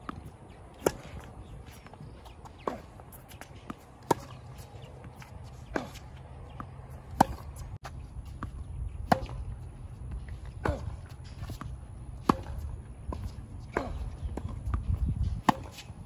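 Tennis ball struck back and forth in a baseline rally: sharp racket hits about every one and a half to two seconds, some loud and some fainter, over a steady low rumble.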